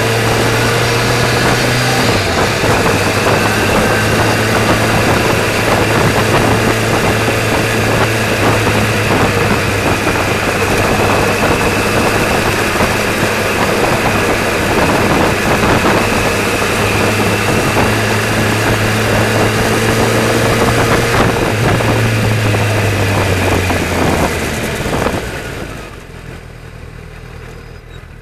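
Vehicle driving through city traffic, as picked up by its dashcam: a steady engine drone under dense road and wind noise. About three seconds before the end the noise drops off sharply as the vehicle slows to a stop.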